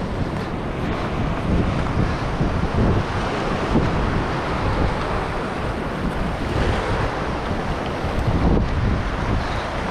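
Ocean surf washing and breaking against a black lava-rock shoreline, with steady wind buffeting the microphone.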